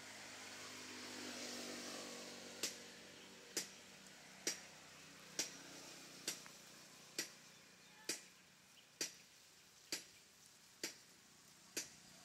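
Quiet, evenly spaced ticking, a little faster than one tick a second, starting about two and a half seconds in. Before it, a faint hiss swells and fades.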